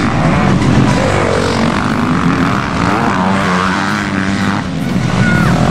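Several motocross motorcycle engines running at once, their revs rising and falling as the bikes race around the track.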